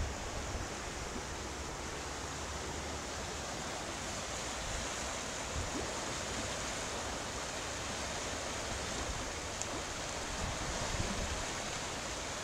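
Swollen creek in flood, fast brown water rushing and churning over rapids: a steady, even rush.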